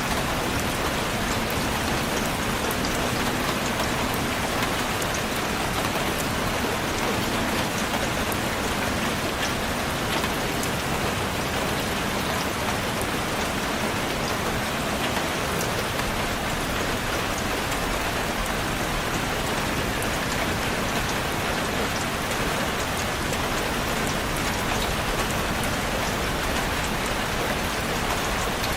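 Steady, heavy rainfall pattering on a surface, a dense even hiss with countless individual drop ticks.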